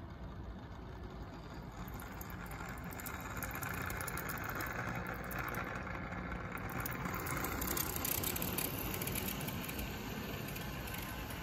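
HO scale model diesel locomotives running along the track past the camera, a steady motor and wheel sound that grows louder as they come by, loudest about eight seconds in.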